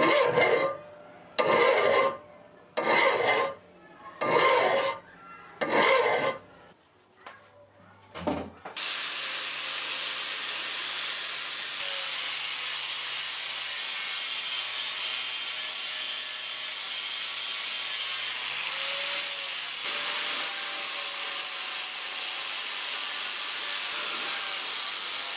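Five strokes of a hand file across a steel spanner handle, about one every second and a half, then a shorter stroke. From about nine seconds in, an angle grinder runs steadily on the steel, with a slight change in its sound about two-thirds of the way through.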